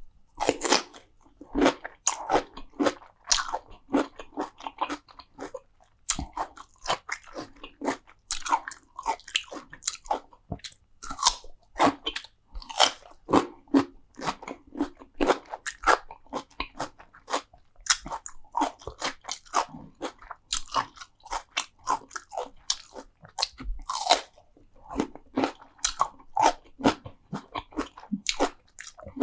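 Close-miked eating: a person biting and chewing crunchy food, with a quick, irregular string of sharp crunches.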